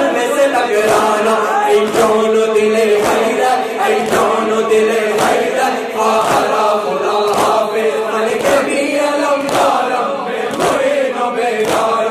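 A noha (Shia lament) sung by a male reciter through a microphone, with a crowd of men chanting along in unison. Regular rhythmic chest-beating (matam) keeps time under the voices.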